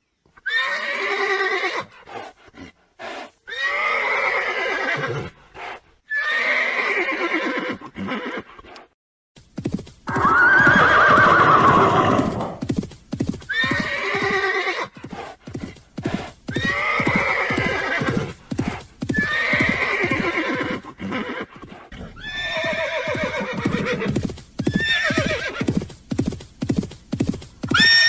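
Horses neighing again and again, about nine whinnies a few seconds apart, each falling in pitch. From about a third of the way in, hooves clip-clop in a steady rhythm beneath the calls.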